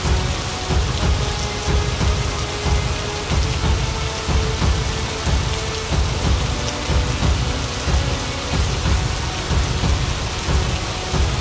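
Steady heavy rain noise over a deep rumble that pulses evenly about every two-thirds of a second, with faint held notes: a rain-and-thunder soundtrack with a slow beat.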